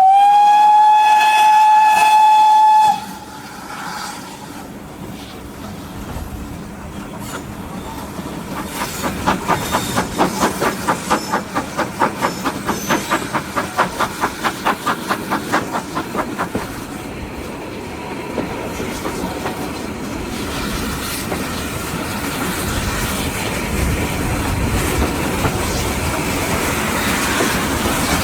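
Steam locomotive No. 9351, a 2-6-0, sounds its whistle with one steady blast of about three seconds. A few seconds later its exhaust beat comes through quick and even for several seconds as the engine works hard, then settles into the steady running noise of the train on the rails.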